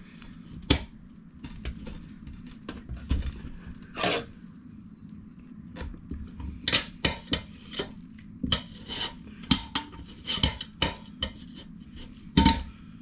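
Irregular sharp clicks, knocks and clinks of a dirt bike tire and wheel rim being handled as the tire is worked back onto the rim.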